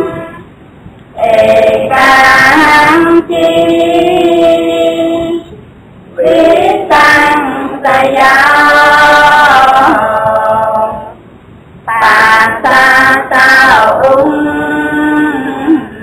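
A woman's voice singing slow phrases of long held notes, with short pauses between phrases.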